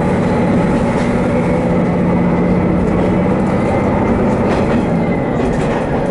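Haimo 330 diesel railcar running along the line: a steady engine and running drone, with a few faint clicks from the wheels over the track.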